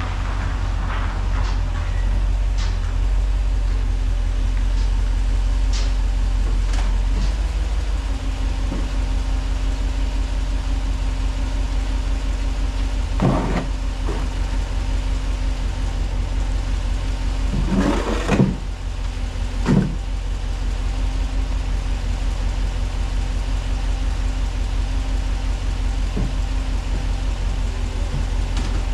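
A motor vehicle running with a steady low rumble, with a few short knocks around the middle.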